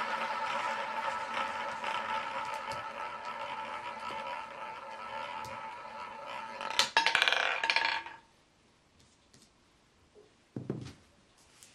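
Roulette ball rolling around the wheel's ball track with a steady whir that slowly fades. About seven seconds in it drops and clatters loudly off the deflectors and pocket frets for about a second before settling in a pocket. A single soft thump follows near the end.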